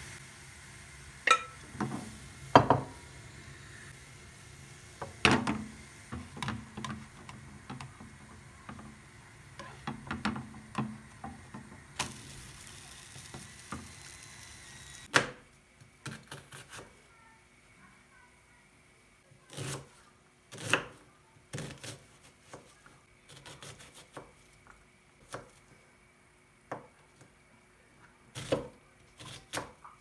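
Cooking crepes: a steady hiss from the pan on the gas burner, with scattered knocks and clinks of the ladle and pan. Halfway through this gives way to a chef's knife chopping an onion on a plastic cutting board, single knocks about a second apart.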